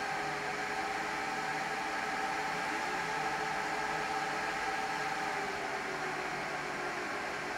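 Dell PowerEdge R610 rack server's cooling fans running during boot-up: a steady rushing whir with a whine in it that rises a little near the middle and settles back down later.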